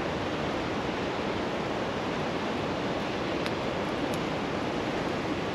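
Steady rushing of a flowing river, with a couple of faint crackles from a wood campfire around the middle.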